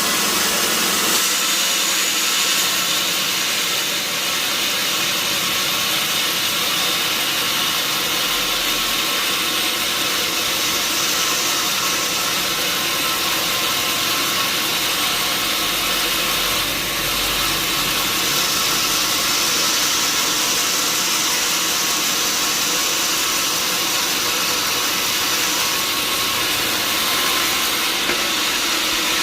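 Large sawmill band saw running steadily, with a loud, even, high-pitched noise.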